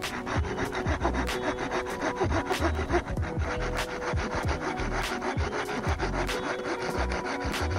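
Hand saw cutting through dead wood in quick, repeated back-and-forth strokes.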